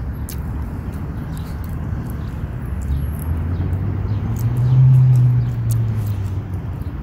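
Steady low outdoor rumble with a passing vehicle's engine hum that swells about five seconds in and fades again, and faint ticks of footsteps on pavement.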